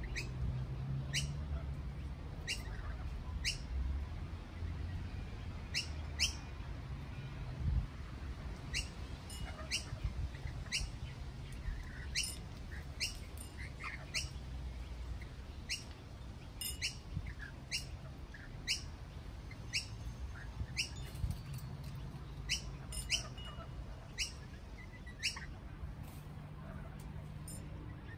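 Lorikeets calling with short, sharp, high-pitched chirps, about one or two a second, over a steady low background rumble.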